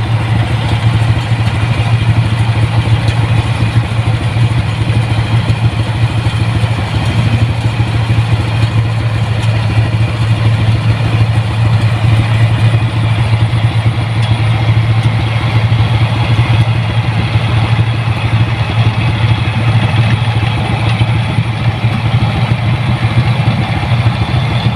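Rice combine harvester's diesel engine running steadily at a constant speed, a loud low hum with a rattle over it.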